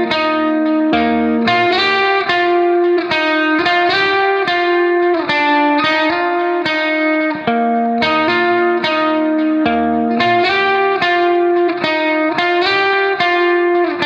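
Background music: a guitar playing a steady, unbroken run of plucked notes.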